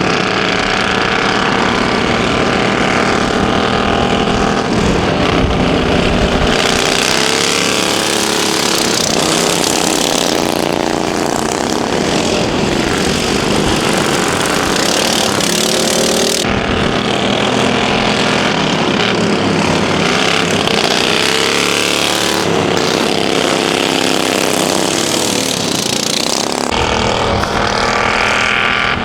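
Racing lawn mower engines running hard, their pitch rising and falling as the mowers rev and pass, with several abrupt shifts in the sound.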